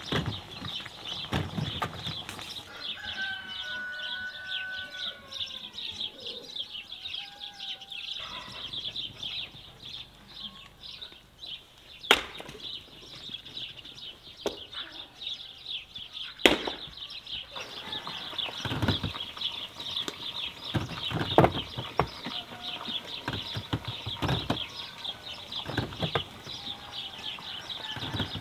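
A steady chorus of small birds chirping, with a few longer bird calls a few seconds in. Near the middle come two sharp strikes of an axe splitting firewood, a few seconds apart.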